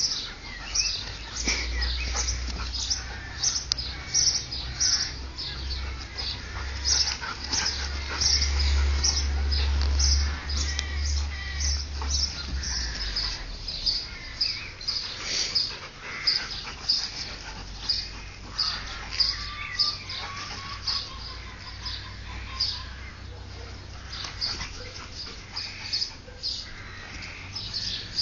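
Two large dogs play-fighting on grass, making quick short bursts of sound about two a second. A low rumble runs under them for roughly the first twelve seconds.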